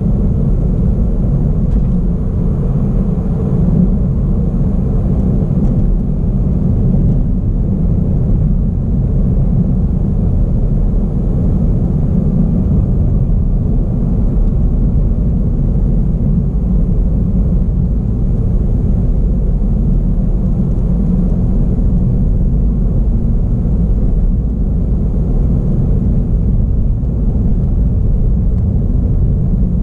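A car driving at a steady pace on an asphalt road: a steady low rumble of engine and tyre noise that does not change.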